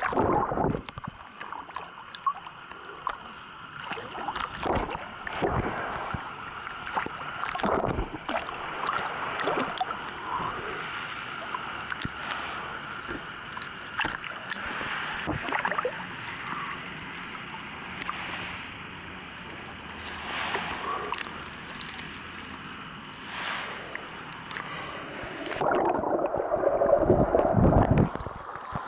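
Sea water sloshing and gurgling around a camera held at the waterline, with splashes and knocks of handling as small waves wash over the microphone. A louder, duller rush comes near the end.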